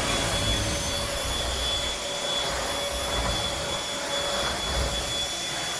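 Bissell Featherweight stick vacuum cleaner running steadily, its motor giving an even rushing noise with a thin high whine.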